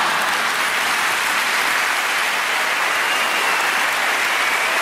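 Large theatre audience applauding steadily at the end of a stand-up comedy routine.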